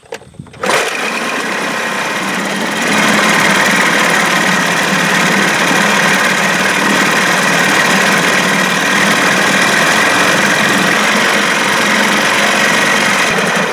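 Small two-stroke outboard motor started and running steadily, rising in revs a couple of seconds in, then shut off near the end. It is run to check its cooling water pump, which is not pumping enough: the owner suspects a worn water-pump impeller.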